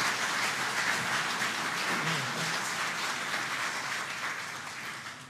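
Audience applauding at the end of an a cappella song, the clapping dying away near the end.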